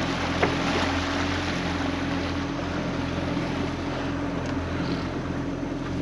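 Boat motor running steadily at cruising speed with a constant low hum, under a steady rush of wind and water as the boat moves along the river.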